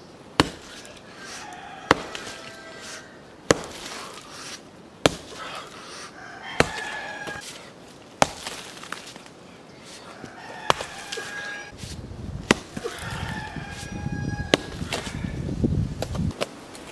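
A long-handled pick struck repeatedly into stony volcanic ground, about nine sharp blows roughly every one and a half to two seconds. Roosters crow between the strikes, and a louder low rumble runs through the last few seconds.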